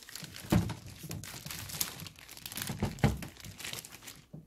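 Clear plastic bag crinkling as hands grip and turn the heavy inverter/charger wrapped in it, with two dull knocks, about half a second in and about three seconds in, as the unit bumps the table.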